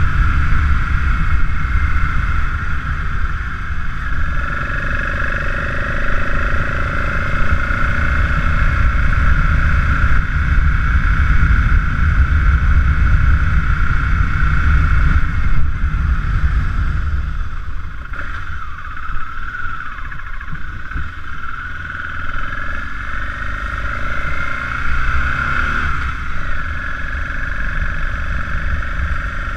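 BMW F650GS motorcycle engine running under way, heard over wind and road rumble. The engine note eases off for a few seconds past the middle, then picks up again.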